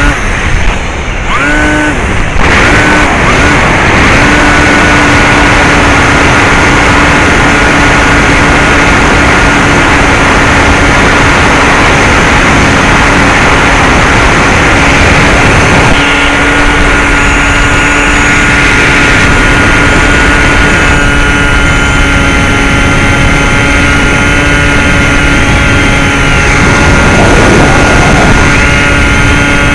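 Bixler 2 RC plane's NTM 1400kv brushless motor spinning a 9x6 propeller, heard from the onboard camera over heavy wind rush. The motor hum climbs in pitch a couple of times in the first two seconds, then holds steady at cruise throttle.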